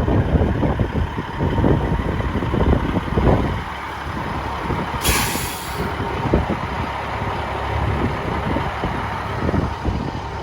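Semi truck engine running with an uneven low rumble, and a short air-brake hiss about five seconds in.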